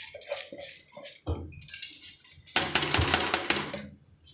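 Clinks and scraping of a metal bowl and utensils against a large metal cooking pot as soaked rice is tipped into boiling water. It comes as several short bursts, the longest a dense scraping clatter in the second half.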